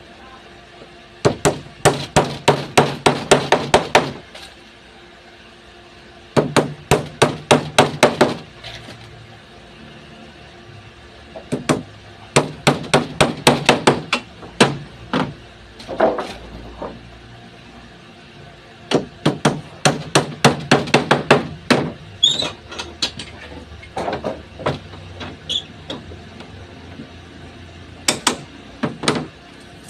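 Hammer striking wood in about five bursts of quick, even blows, each burst a few seconds long with pauses between, as a wooden door jamb is built.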